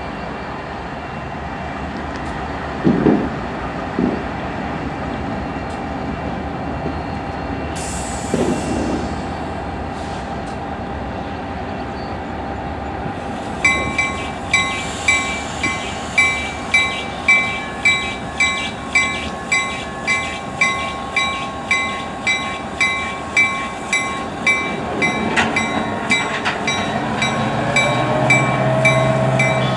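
Norfolk Southern diesel locomotives rumbling slowly past in a rail yard. About halfway through, a locomotive bell starts ringing at an even pace, about three strikes every two seconds.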